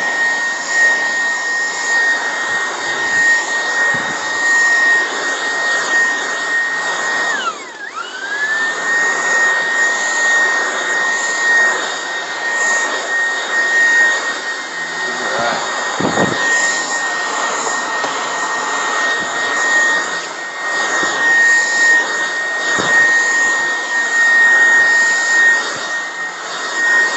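Dreame R20 cordless stick vacuum running on its high setting: a steady high motor whine over a rushing airflow. About a quarter of the way in, the whine dips sharply in pitch and quickly climbs back up.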